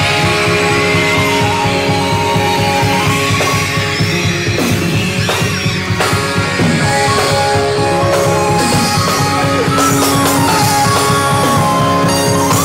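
Rock music with guitar, loud and continuous.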